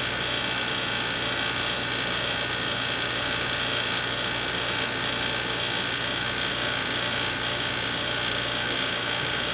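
Vacuum pump running steadily with a rattling mechanical chatter and a low hum underneath.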